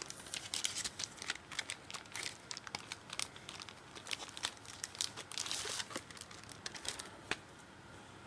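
Thin clear plastic bag crinkling and crackling in irregular bursts as it is handled, dying away about seven seconds in.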